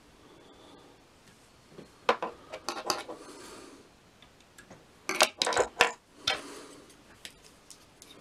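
Small fly-tying scissors snipping and clicking as they trim the loose tag end of the ribbing on the fly, in two clusters of sharp clicks, about two seconds in and again about five seconds in.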